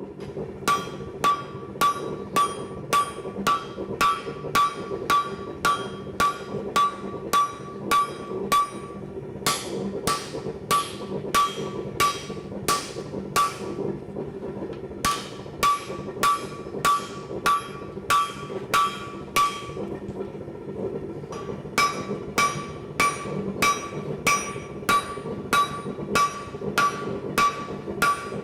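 Hammer blows on hot steel over an anvil, about two a second, each with a short ring, in four runs broken by brief pauses, over a steady low hum. The steel is being forged into the U shape that forms an axe eye.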